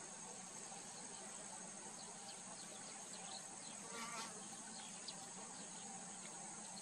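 Steady high-pitched insect chorus, faint and unbroken. Short, high, falling chirps come and go over it from about two seconds in, and a brief harsher call sounds about four seconds in.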